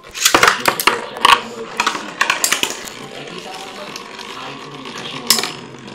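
Two Metal Fight Beyblade tops (Flame Sagittario and Storm Pegasus) launched into a plastic basin, clattering and clashing in a rapid string of sharp clicks for the first couple of seconds. They then spin with a steady scraping whir, with one more sharp clash near the end.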